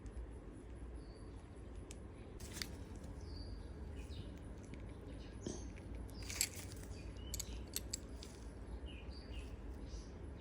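A few light, sharp metal clicks and taps as a grease fitting is threaded into a steering-shaft universal joint cross, over a low steady hum.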